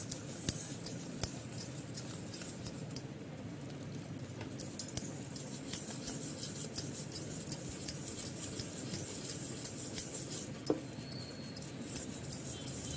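Hand wire whisk beating dhokla mix and water in a steel bowl, its wires ticking against the bowl about three times a second, with a short break about three seconds in.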